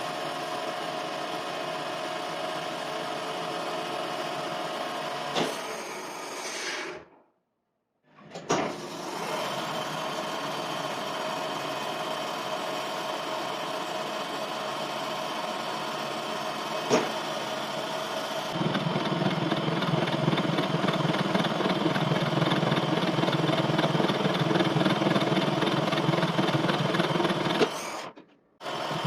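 Metal lathe running with a steady mechanical hum, cutting off abruptly twice. About two-thirds of the way through it grows louder, with a heavier, lower rumble joining in.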